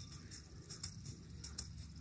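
Faint hoofbeats of a horse trotting on sand arena footing, a run of soft irregular beats over a low steady rumble.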